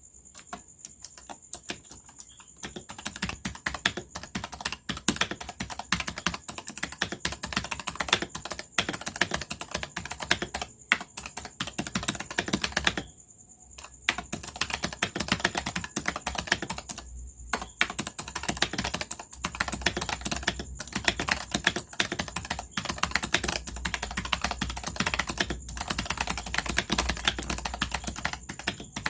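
Fast typing on a keyboard with Razer Purple clicky opto-mechanical switches: a dense, rapid run of key clicks, lighter for the first couple of seconds, with brief pauses about 13 and 17 seconds in.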